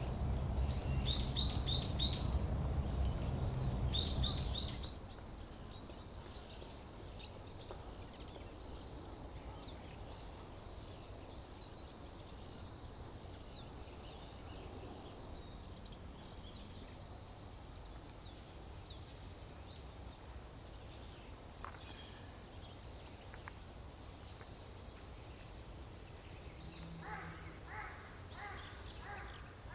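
Steady high-pitched trilling of autumn crickets. In the first few seconds small birds give groups of short falling chirps over a low rumble that stops about five seconds in, and near the end a bird gives a quick run of about five harsh repeated notes.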